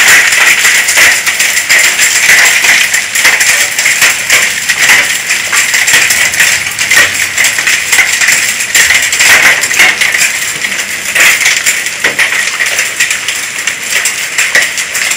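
Small hailstones, smaller than a quarter, falling with rain: a dense, continuous clatter of many tiny hard impacts.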